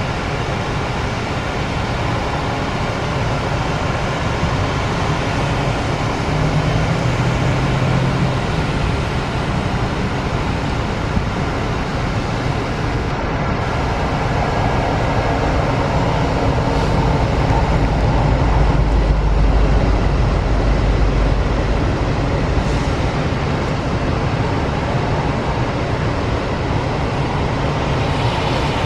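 Freight train passing: diesel locomotives rumble by, then a long string of covered hopper cars rolls past, steady throughout. Mixed with the tyre hiss of cars driving on a wet road, heard through the vehicle's open window.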